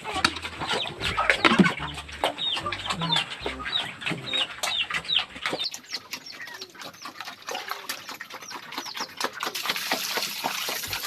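Chickens feeding on grain, with many short falling chirps and clucks and a dense patter of pecking clicks. A brief hiss comes near the end.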